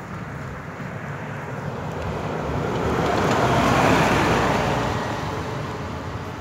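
A bus driving past on the road: its noise swells to a peak about four seconds in, then fades away.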